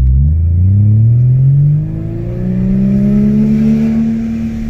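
Toyota 1JZ-GTE turbocharged straight-six with a Borg Warner S366 turbo, running low boost, heard from inside the cabin of a manual IS300 as it accelerates. The engine note rises steadily for about two seconds, dips briefly as at a gear change, then climbs again more slowly and holds.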